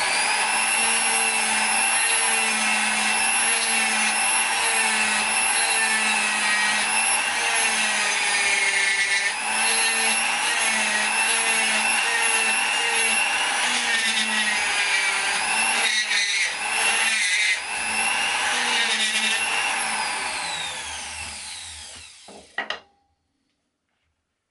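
Electric flexible-shaft rotary grinder running at high speed with a coarse-grit Saburtooth bur cutting into a block of wood: a steady high whine with rasping, its pitch wavering a little. Near the end it winds down with falling pitch and stops.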